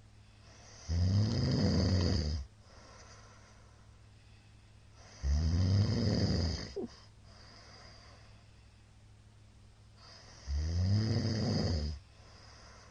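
A middle-aged man snoring loudly, with a low rattling rumble on each breath in. There are three snores, each about a second and a half long, one every four to five seconds, with quiet breathing between them.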